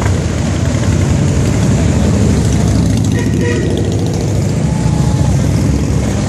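A procession of large touring motorcycles riding slowly past close by, their engines running together as a loud, steady low drone.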